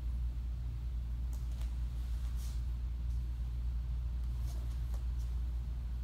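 Steady low room hum, with a few faint, brief brushing sounds of a karate uniform and bare feet moving on a wooden floor during a kata.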